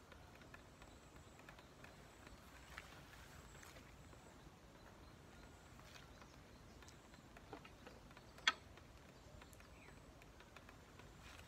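Near silence: faint steady background hiss with a few faint ticks and one sharp click about three-quarters of the way through.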